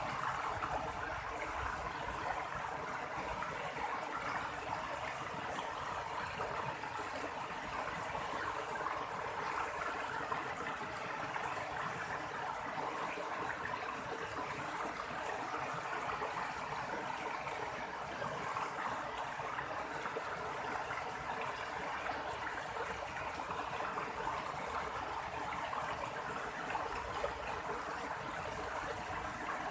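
River water flowing steadily over rocks in a shallow stream, an even babbling and gurgling rush.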